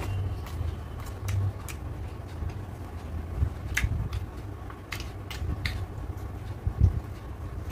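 Close-up eating sounds: irregular sharp mouth clicks and smacks of chewing, over a steady low rumble, with a louder low thump near the end.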